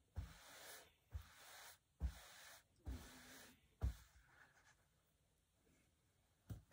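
Hands rubbing and smoothing fabric flat on a padded ironing board to crease it: four soft rubbing strokes, each starting with a light thump, over the first four seconds. A single knock near the end.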